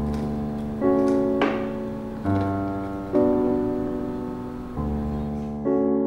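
Background piano music: soft chords struck about every second, each fading before the next.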